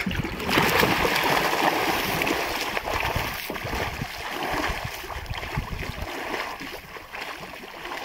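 A swimmer splashing in river water, pushing off from the side of a boat and swimming away with overarm strokes. The splashing is loudest in the first couple of seconds and fades as he moves off.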